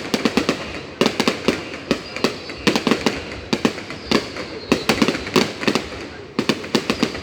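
Fireworks display: rapid clusters of sharp bangs and cracks from shells bursting, several a second, coming in waves.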